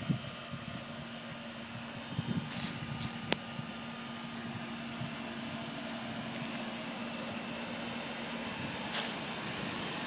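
A 1989–1990 Trane Weathertron over-and-under packaged heat pump running, a steady hum under the even rush of its outdoor fan, growing slightly louder. A single sharp tick about three seconds in.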